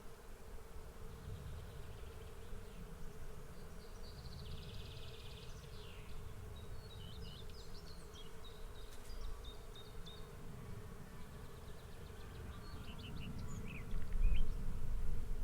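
A swarm of bees buzzing in a steady, dense drone. The low rumble under it swells louder near the end.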